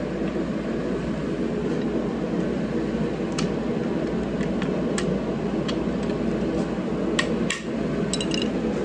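Sharp metallic clicks and clinks of hand tools on engine bolts, a few scattered single ones and a quick cluster near the end, over a steady mechanical hum in the shop.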